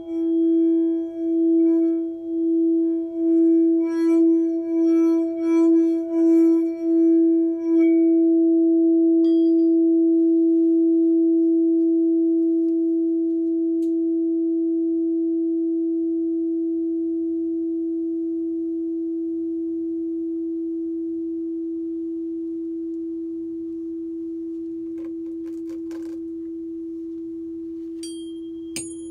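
Frosted crystal singing bowl sounding one steady low tone. For the first eight seconds it swells and dips about once a second as the mallet circles the rim. After that it rings on alone, slowly fading, with a small click or tap near the end.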